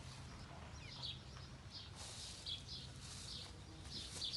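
Small birds chirping: short high chirps come several times a second, over a faint steady low hum.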